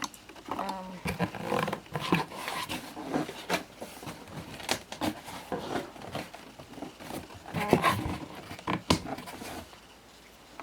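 Toy packaging of cardboard and plastic being handled and pulled at, with scattered knocks, clicks and rustles; the loudest knocks come near the end. A short low groan-like sound is heard about half a second in.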